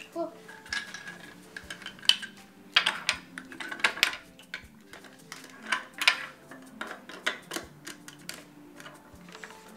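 Large plastic toy building bricks clicking and knocking together and against a tabletop as a child snaps them onto a toy car, in irregular sharp clicks.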